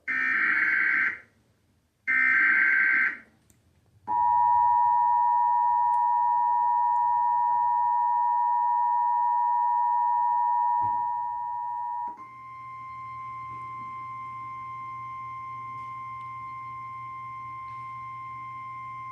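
Emergency Alert System warning tones. First come two rasping, buzzy data bursts of the digital SAME header, about a second each and a second apart. Then the loud, steady two-tone EAS attention signal runs for about eight seconds, and midway it gives way to a quieter single steady tone, the NOAA Weather Radio warning alarm tone.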